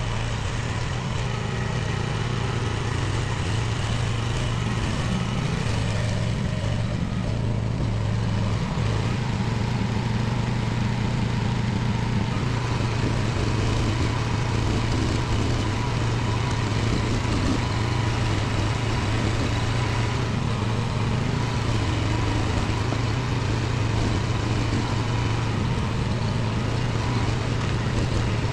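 Mini excavator's small engine running at a steady speed while the machine works.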